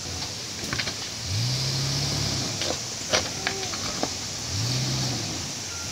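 Toyota SUV engine revving up in two swells as it crawls over a rocky riverbed track, with stones knocking and crunching under the tyres.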